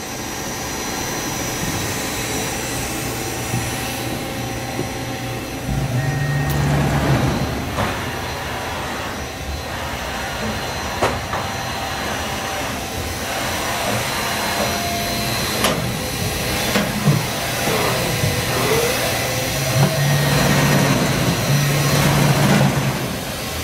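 Fadal VMC 4020HT vertical machining center running with its spindle at about 3,000 RPM: a steady whirring, with a low hum that swells twice and a few light clicks.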